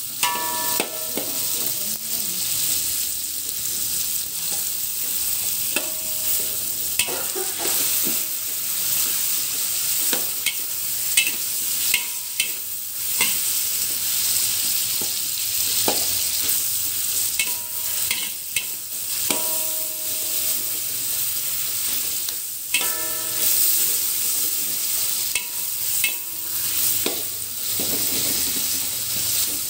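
Tomatoes and sliced red onions sizzling in hot oil in a wok while a metal spatula stirs them, scraping the pan and giving short metallic clinks every few seconds.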